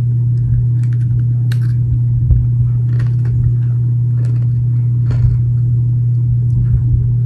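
Someone chewing an Oreo cookie, with scattered faint crunches and mouth clicks, over a loud steady low hum.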